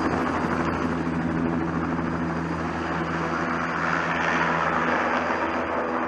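Single-turbine tour helicopter running steadily: a constant turbine and rotor drone with an even hum underneath.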